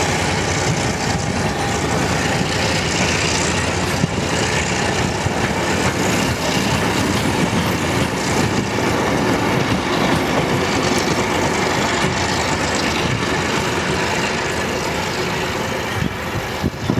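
GM G22 diesel-electric locomotive hauling a train, its engine running steadily together with the rumble of wheels on the rails.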